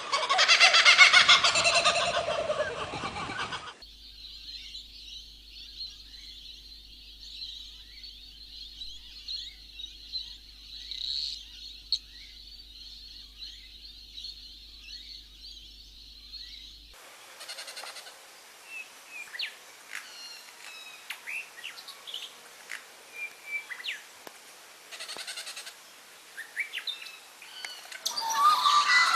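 Birds chirping and calling in nature recordings that change abruptly twice: first a loud dense chorus, then a steady high-pitched drone with faint chirps, then separate short calls that get louder near the end.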